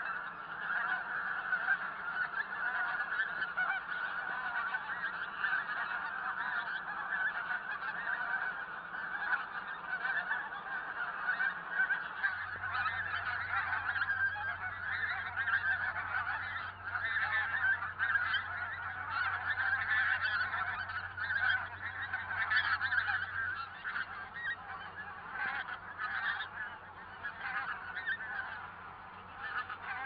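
A large flock of pink-footed geese calling continuously: a dense chorus of many overlapping honks with no break.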